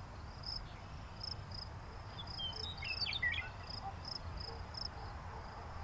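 Quiet ambient insect chirping, a steady run of short, high chirps about two or three a second, with a brief cluster of gliding bird-like chirps about three seconds in.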